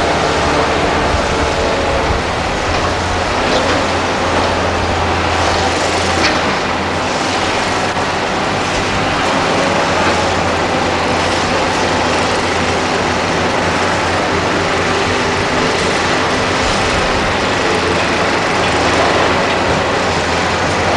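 Liebherr R962 hydraulic excavator and Cat 963 track loader working in rubble: diesel engines running steadily under load, with clanks and scrapes from steel tracks and the bucket.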